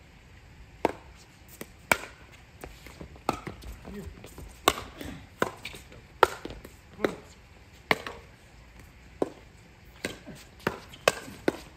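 Pickleball rally: paddles striking a plastic pickleball with sharp pops, about fourteen hits and bounces at uneven intervals of roughly half a second to a second.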